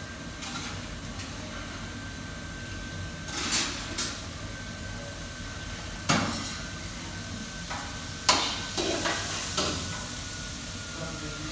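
Kitchenware knocking and clattering: several sharp knocks of pots, pans or utensils, the loudest about halfway and another cluster about three-quarters through, over steady room noise with a faint high whine.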